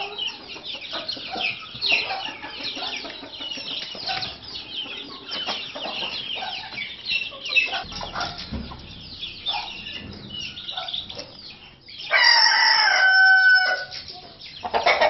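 A flock of white Leghorn chickens cheeping and clucking in many short calls. About twelve seconds in, a Leghorn rooster crows once, loudly, for about a second and a half.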